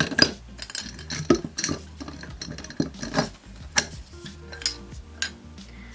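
Plastic Copic alcohol markers clicking and clinking: caps snapping on and off and marker barrels knocking together as they are picked up and put down, in a string of sharp, irregular clicks.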